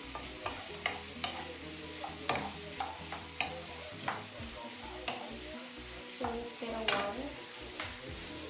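Wooden spatula scraping and knocking against a frying pan as pork belly cubes and tomato are stirred over a steady sizzle, with irregular strokes about one or two a second, the loudest about seven seconds in.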